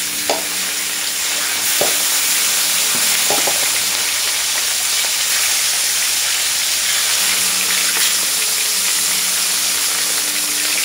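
Dried salted sepat fish frying in hot oil in a wok, a steady sizzle throughout. A few brief knocks come in the first few seconds as the wooden spatula moves the fish.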